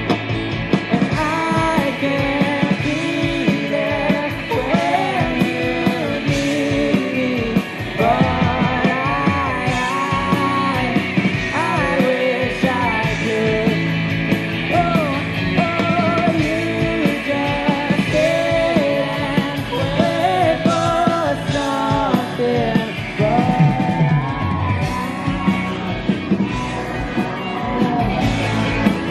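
Indie rock band playing live: a singer over electric guitars, bass guitar and drums.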